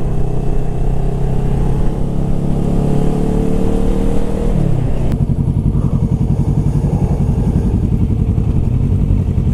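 Motorcycle engine running steadily at cruising revs. About four and a half seconds in, the revs fall as the bike slows, and it runs on at low revs with a quick, pulsing beat.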